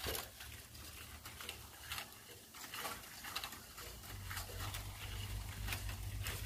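Faint scattered rustling and clicking in dry leaf litter and twigs, over a low steady rumble that grows a little stronger about four seconds in.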